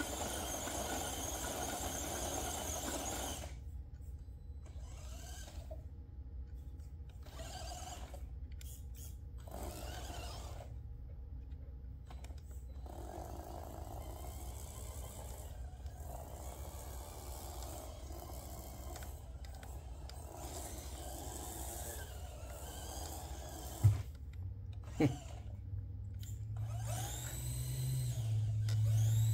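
Redcat MT-18 mini monster truck's small electric motor whining in bursts as it is driven, stopping and starting with the throttle. Two sharp knocks about a second apart come near the end, followed by a low rumble that grows louder.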